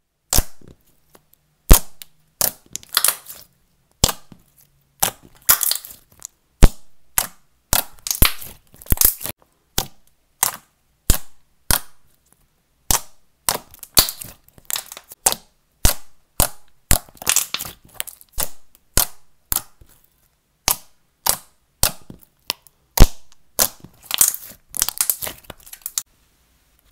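Thick, glossy, creamy slime squeezed and pressed by hand, giving off bubble pops: sharp, loud pops and clicks in irregular clusters, at times several a second, with short pauses between.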